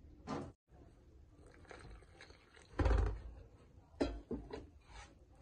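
A hand mixing water into coarse maize flour in a metal basin: irregular rustling and scraping of the flour, with a dull thump about halfway through and a sharper knock a second later.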